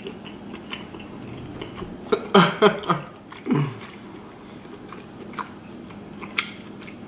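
A person chewing lobster meat open-mouthed, with wet smacking and soft clicks throughout. A brief vocal sound comes about two and a half seconds in.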